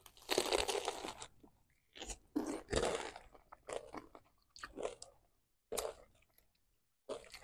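Two people biting into and chewing chamoy pickles wrapped in Fruit by the Foot and coated with crushed Takis: loud crunches about a third of a second in and again near three seconds, followed by shorter crunches of chewing.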